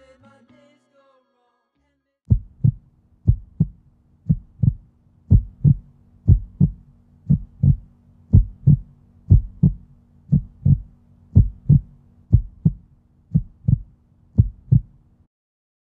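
Heartbeat sound: about thirteen double thumps (lub-dub), roughly one a second, steady and even, starting about two seconds in and stopping just before the end, over a faint low hum.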